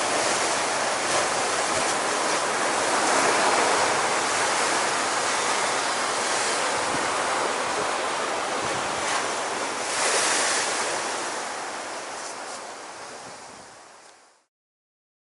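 Ocean surf: waves breaking and washing in as a steady rush, swelling a little about ten seconds in. It fades out over the last few seconds to silence.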